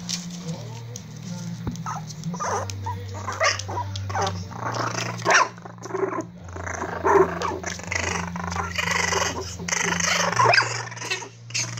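Prague Ratter puppies yipping and barking in play, in short irregular bursts that come thick and fast from about two seconds in, over a steady low hum.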